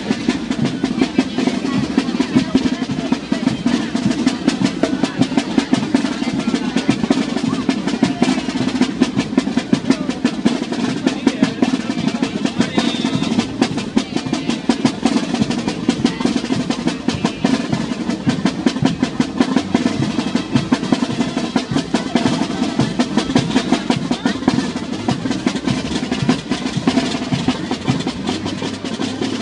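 Music for a traditional street dance, carried by snare drums playing dense, rapid rolls and strokes with no break.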